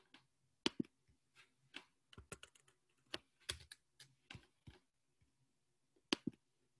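Computer keyboard keys being tapped: a scattered, uneven run of faint clicks, loudest about a second in and again near the end.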